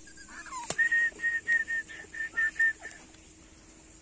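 Dachshund puppies whimpering faintly, then a sharp click and a quick run of about eight short whistle-like notes, all on the same pitch, about four a second, stopping after about two seconds.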